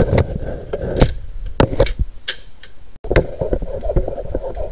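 Irregular knocks and clicks of handling and movement close to the microphone, with a brief cut-out about three seconds in.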